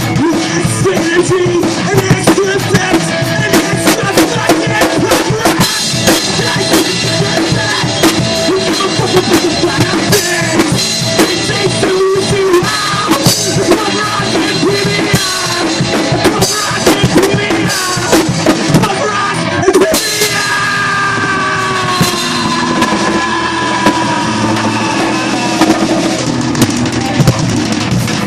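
A punk rock band playing their song at full volume, with steady, driving drum-kit hits on bass drum and snare. From about twenty seconds in, sliding pitched lines run over the drums.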